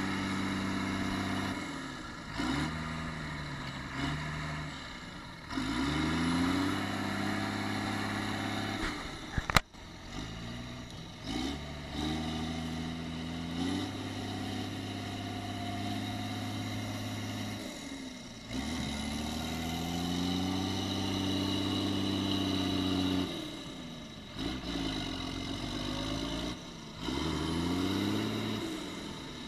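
Case IH Quadtrac tractor's diesel engine working under load, pulling a scraper through shallow water, its pitch rising and falling again and again as the throttle changes. A single sharp click about ten seconds in.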